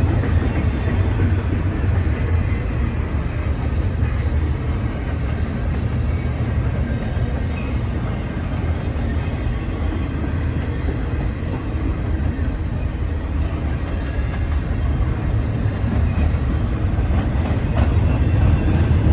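Freight train cars rolling past steadily: a continuous low rumble with faint clatter of wheels on rail.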